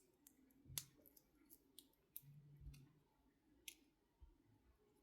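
Faint, scattered small clicks and light handling noise of a kit's electronic parts and hand tools being picked up and fitted to a circuit board.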